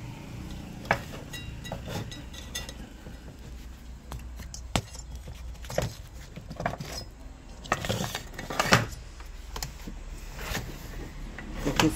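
Irregular clinks and knocks of an opened electric-scooter battery charger being handled: its metal heat sink, case and circuit board knocking and rattling against each other. A low steady hum runs underneath.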